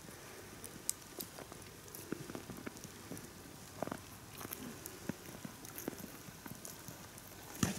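Faint scattered crackling and rustling of footsteps and a dog shifting about in frosty, snow-dusted undergrowth, with a few sharper snaps.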